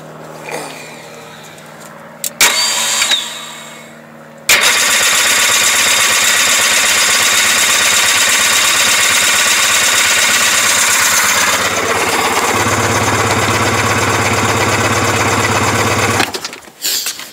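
A Sea-Doo watercraft's electric starter cranks the engine in one long run of about twelve seconds. It starts suddenly after a few clicks, shifts lower partway through and cuts off without the engine catching.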